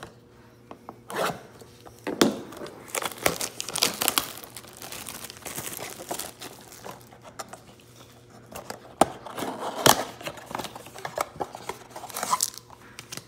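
Clear plastic shrink wrap crinkling and tearing as it is stripped off a cardboard trading-card blaster box, in an irregular string of crackles and rips.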